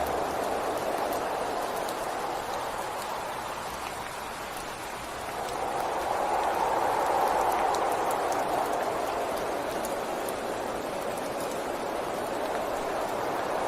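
Rain falling steadily, an even hiss with scattered drop ticks. It eases slightly a few seconds in and swells again about halfway through.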